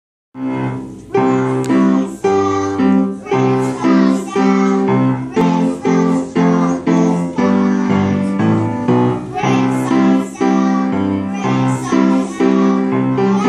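Keyboard music: chords struck at a steady beat, about two a second.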